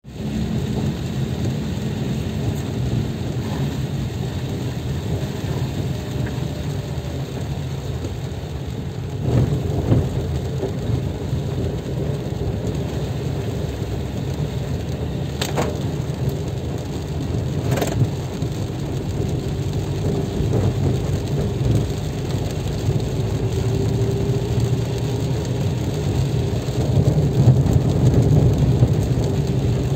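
A car driving on wet roads in the rain, heard from inside the cabin: a steady engine and tyre rumble, with rain on the car. Two sharp clicks come a couple of seconds apart midway through.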